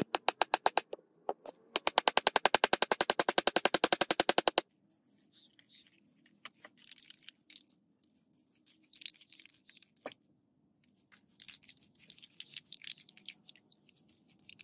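Rapid run of sharp metal-on-metal hammer strikes, about ten a second, driving the metal wedge tube into the top of the hammer handle's eye. The strikes pause briefly about a second in and stop after about four and a half seconds. After that come short, scattered hissing bursts from an aerosol spray can on the wooden handle.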